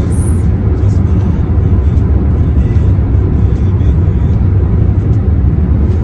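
Car cruising at highway speed, heard from inside the cabin: a loud, steady low rumble of road and engine noise.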